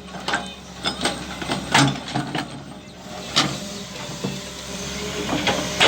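A machine's engine running steadily, with a series of irregular sharp clacks and knocks over it.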